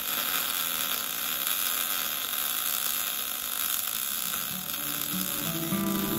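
Wire-feed welder arc crackling and hissing steadily while a bead is laid. Music fades in near the end.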